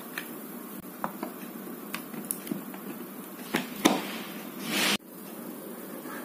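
Small plastic clicks and knocks from a USB flash drive being handled and pushed into a port on a USB hub, the loudest knock just before four seconds in. This is followed by a rising rustle that cuts off suddenly about five seconds in.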